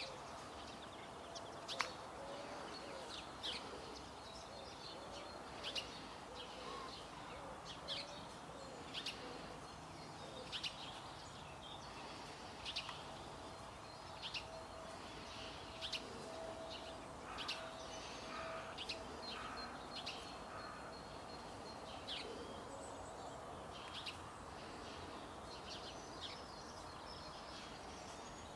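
Small birds chirping, short sharp calls repeating about once a second, over a faint steady outdoor background noise.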